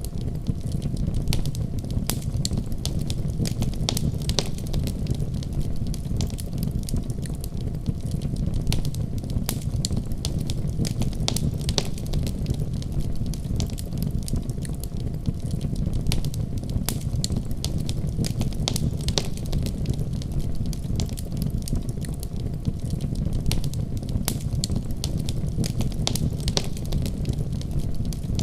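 Wood fire crackling in a fireplace: many sharp, irregular pops and snaps over a steady low rumble.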